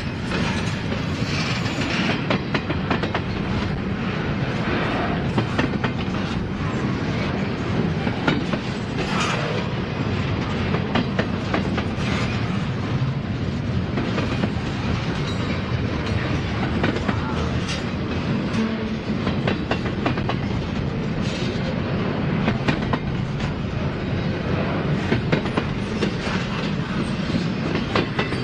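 Freight train cars rolling past with a steady rumble, their wheels clicking over rail joints.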